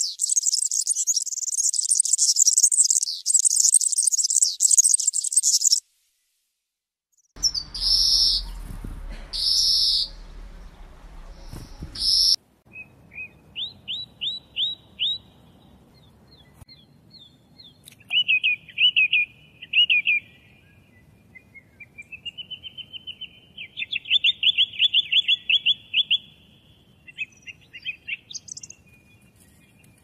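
European serins twittering in a fast, high, jingling song for about six seconds. After a short gap come three loud drawn-out calls, then a song thrush singing varied phrases, several repeated two or more times, with a fast run of notes near the end.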